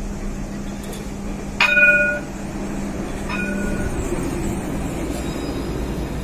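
Alstom Citadis tram running in to a stop with a steady electric hum, sounding its warning bell twice, about a second and a half in and again, fainter, about three seconds in. The running noise grows fuller as the tram draws alongside.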